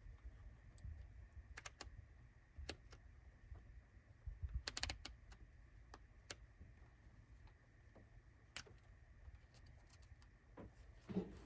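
Faint, scattered small clicks and light taps from wires and connectors being handled, about eight in all with a short cluster midway, over a low steady hum.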